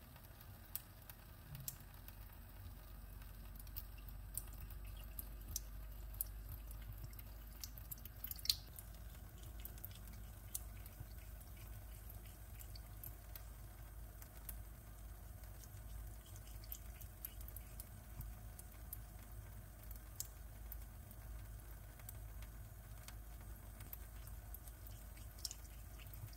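A thin stream of water running from a kitchen tap into a sink while a cat laps at it, with irregular small drips and wet clicks of its tongue.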